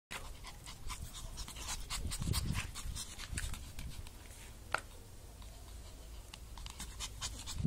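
Shih Tzu puppies panting in quick short breaths, thicker in the first half, with a sharp click a little before five seconds in and a dull low rumble a couple of seconds in.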